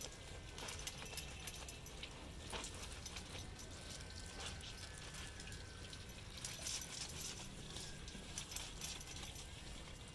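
Clothes being washed by hand in a plastic tub of soapy water: wet fabric squeezed and rubbed, giving irregular squelches, drips and small splashes.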